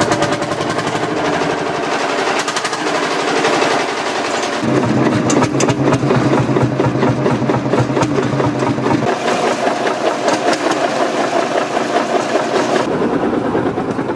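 Single-cylinder two-stroke diesel engine of a vintage Field Marshall tractor running with a steady, slow, thumping beat shortly after being started. The sound changes abruptly a few times.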